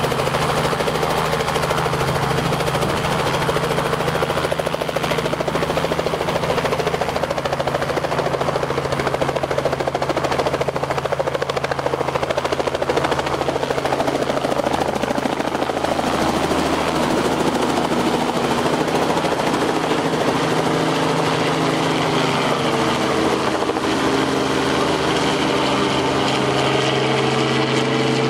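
Robinson R44 helicopter running at flight rotor speed, its rotor beat and piston engine loud and steady, as it lifts off the lawn and flies overhead. Near the end its low tones bend slightly in pitch as it passes over.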